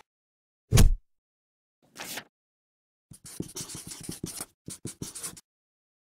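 End-card sound effects over dead silence. A loud thud comes about a second in and a short swish at about two seconds. For the last two seconds or so, a pen scribbles on paper in quick scratchy strokes.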